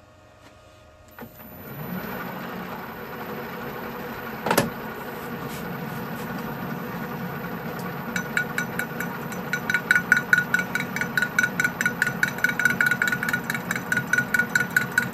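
A Colchester Student lathe starting up and running steadily, spinning a square steel plate in a four-jaw chuck, with one sharp knock about four and a half seconds in. From about eight seconds in, a fast, even train of ringing metallic ticks joins the running sound as the tool starts facing the plate.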